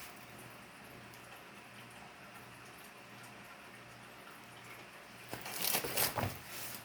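Faint steady room hiss, then about five seconds in a short burst of rustling and crinkling as a diamond painting canvas is handled.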